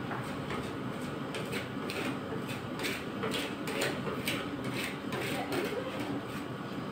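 Metal spatulas chopping and scraping ice cream mixture on the frozen steel pan of an ice cream roll machine, a quick run of short strokes, a few a second. The machine's steady hum runs underneath.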